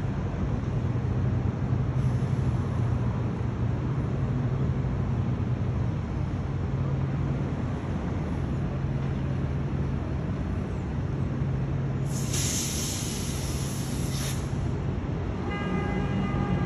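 Steady low hum and rumble of the Carnival Mardi Gras cruise ship's machinery while docking, with rushing noise over it. About twelve seconds in a hiss sounds for about two seconds, and near the end a short steady tone begins.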